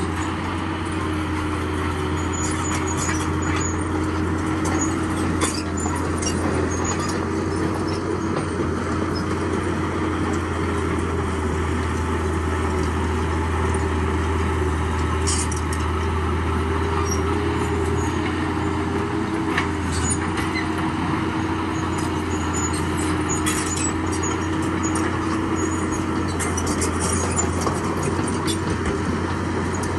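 Heavy diesel earthmoving machinery running steadily at a constant, low drone, with a few scattered sharp clinks.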